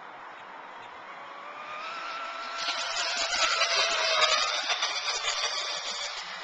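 A motorboat passes by. Its engine whine and a rushing hiss build up, are loudest about three to four seconds in, then fade, and the whine drops slightly in pitch as it goes.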